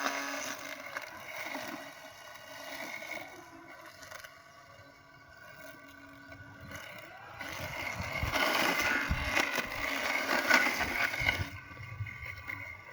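Robotic lawn mower running: its motor whine fades early on, then a louder, rougher spell of mechanical noise comes from about seven to eleven and a half seconds in.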